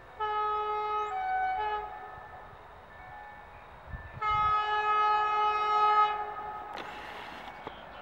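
Horn of an approaching EU160 electric locomotive. It gives a short blast that changes tone twice, then a longer steady blast of about two seconds, a few seconds later. Near the end comes the growing rush of the oncoming train.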